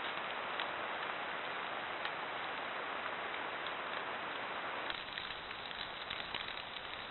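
Steady hiss with a few sharp ticks through a trail camera's small microphone. About five seconds in, the sound changes to rain pattering on leaves, with many small drop ticks.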